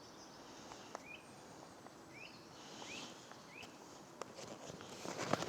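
A woodland bird repeating a short rising call about five times, faint against a soft background hiss, with a few light knocks of handling near the end.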